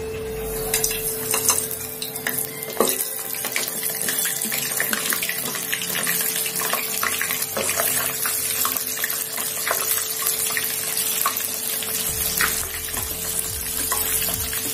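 Flour-coated chicken pieces deep-frying in hot oil in a kadai over a medium flame, the oil sizzling and crackling steadily from about half a second in. A few sharp clicks come in the first three seconds as the pieces go in.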